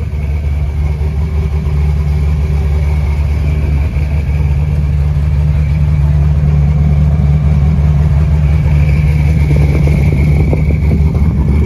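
Funco FD9 sand car's LS V8 engine idling steadily, with no revving.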